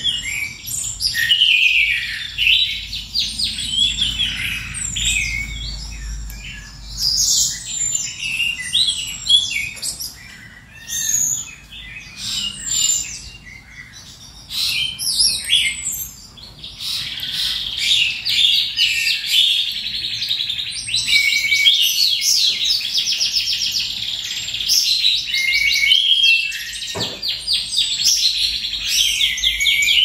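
Domestic canary singing: a varied run of chirps and short whistled notes, turning about halfway through into long, fast trills.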